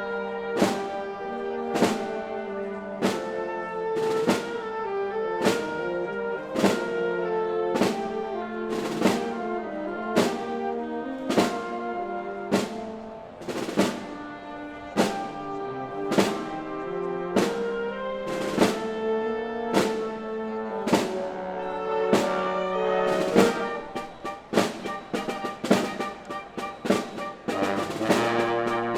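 Symphony orchestra playing slow music with brass and a heavy drum stroke about once a second; near the end the drum strokes come much quicker.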